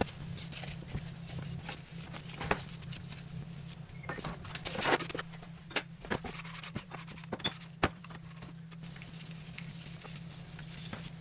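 Metal motorcycle hub parts being handled and worked on at a bench: scattered clinks and knocks over a steady low hum, with a short hissing burst about five seconds in.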